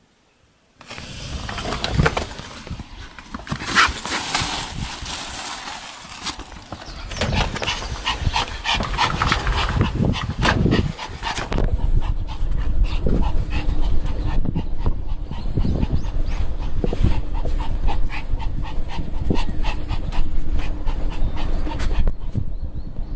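Pomeranian panting hard and fast, starting about a second in, with louder, more varied dog sounds in the first half.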